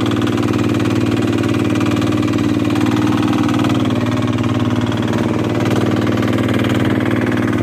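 Small fishing boat's engine running steadily.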